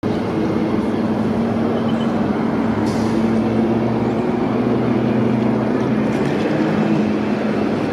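Jet engines of a Boeing 787 airliner on final approach: a steady drone with a low hum.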